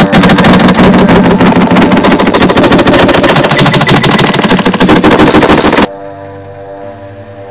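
A loud, fast rattle of sharp clicks for about six seconds that cuts off suddenly, leaving a steady droning music.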